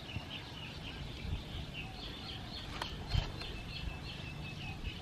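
Bird chirping outdoors: short high chirps repeating a few times a second, with a thin steady whistle for a second or so past the middle and a few low thumps of wind or handling on the microphone.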